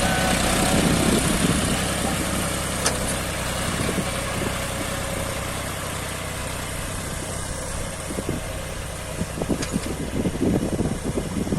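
John Deere 5050D tractor's three-cylinder diesel engine running steadily under load, with a sharp click about three seconds in and irregular rumbling gusts near the end.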